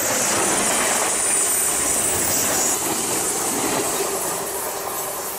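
A model Pacific steam locomotive and its train run past at speed on the layout track, a steady rolling rumble of wheels on rail with a faint hum and hiss.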